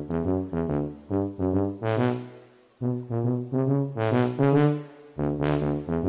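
Background music played on low brass: a run of short, separate notes with a brief pause about two and a half seconds in.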